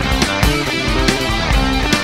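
Progressive rock instrumental playing: electric guitar and bass lines over a busy drum part, several drum hits each second.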